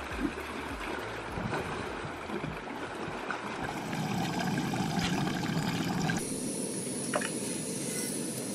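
Small waves lapping against lakeshore rocks, then water pouring in a trickling stream into an aluminium mess tin on a camp stove. A thin, steady high hiss joins about six seconds in.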